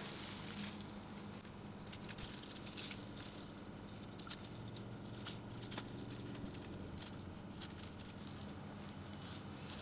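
Faint rustling and small crackles of a thin plastic sheet and hands rolling puff pastry on a plastic cutting board, over a faint steady hum.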